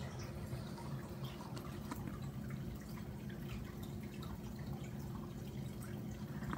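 Aquarium water trickling and dripping in small irregular ticks over a steady low hum.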